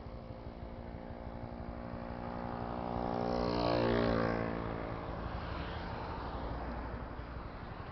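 Another motor vehicle passing close by on the road: its engine tone grows louder, peaks about four seconds in, then drops in pitch and fades as it goes past, over steady road noise from the moving car.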